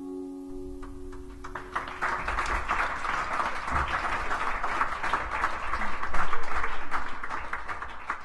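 The last ringing notes of a nylon-string guitar and handpan die away, then an audience applauds, growing louder and tailing off near the end.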